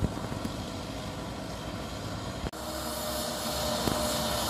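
Tractor engine running steadily while it pulls a rotary tiller through a flooded rice field. About halfway through the sound breaks off briefly and comes back a little louder, with a steadier hum.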